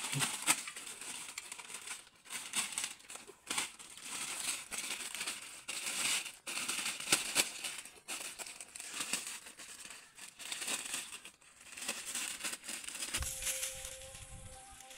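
Plastic wrapping crinkling and rustling in irregular handfuls as it is pulled off a coil of razor wire. Near the end it gives way to a low rumble with a few faint steady tones.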